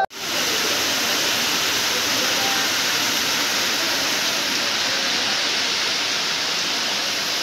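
Heavy rain pouring down, a steady, dense hiss that does not let up.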